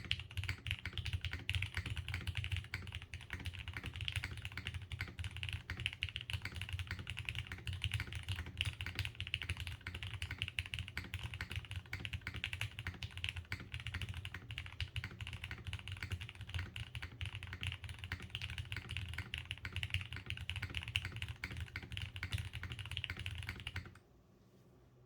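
Continuous typing on a KBDFans Tofu60 2.0 mechanical keyboard with lubed Cherry MX Black linear switches, a carbon fibre plate and GMK keycaps: a dense, steady stream of keystrokes that stops abruptly near the end.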